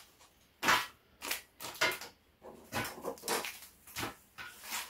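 Plastic and foil ration packets being handled, crinkling in a series of short rustles about half a second apart.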